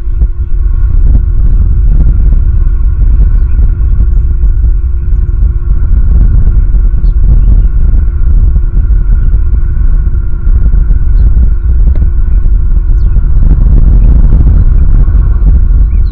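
Wind buffeting an outdoor nest-camera microphone: a loud, steady low rumble, with a few faint steady hums above it.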